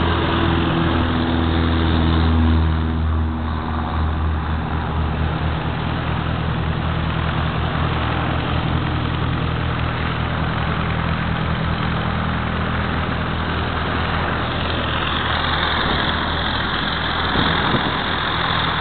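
Light single-engine aircraft's piston engine and propeller running at low taxi power: a steady low drone, strongest a few seconds in, under an even hiss.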